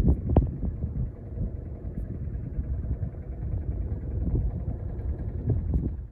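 An engine running steadily with a low rumble, with a few clicks and rattles over it; it cuts off suddenly at the end.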